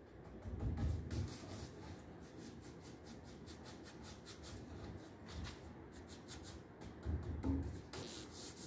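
Brush bristles scrubbing quickly back and forth over a carved, gilded wooden frame moulding. It comes as rapid swishing strokes in several bursts, with short pauses between them.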